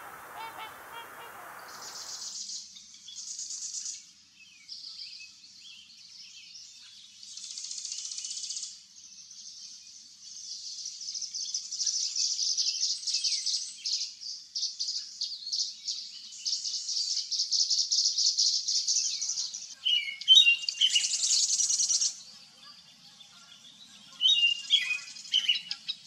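Songbirds singing: a long string of high-pitched, rapid twittering phrases and trills with short pauses between them, and a few lower falling notes near the end. The first couple of seconds hold a lower, noisier sound that fits waterfowl calling, before the birdsong begins.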